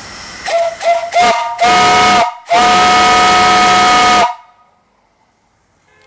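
Antique brass steam whistle on a fire-tube boiler under pressure, blown loud: three short toots, then a longer blast and a long blast of about two seconds that cuts off sharply. A steady steam hiss comes before the first toot.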